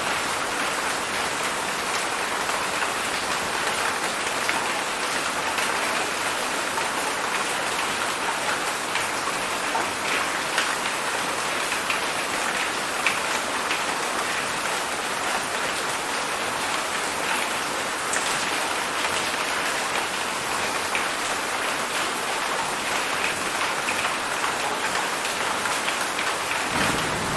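Heavy rain falling steadily, a dense even hiss dotted with many small drop patters. A low rumble comes in just before the end.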